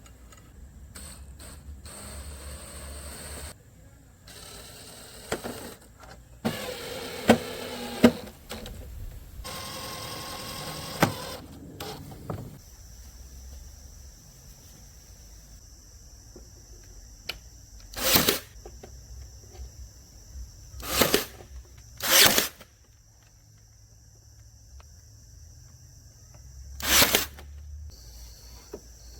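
Workshop sounds from a woodworking build in quick succession: clicks and knocks, then four short, loud hissing bursts about half a second long.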